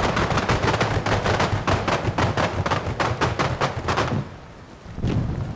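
Rapid volley of pyrotechnic charges firing paint into the air, several sharp bangs a second for about four seconds, then stopping; more bangs start again shortly before the end.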